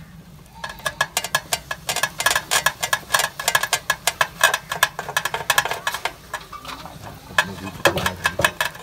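A fast, irregular run of sharp clicks and scrapes with a metallic ring, from steel cooking utensils being worked by hand. It stops for about a second shortly before the end, then starts again.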